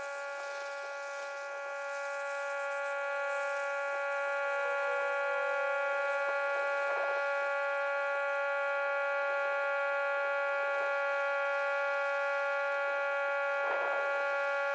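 Pressure washer running during the rinse, a steady high-pitched whine that holds one pitch throughout.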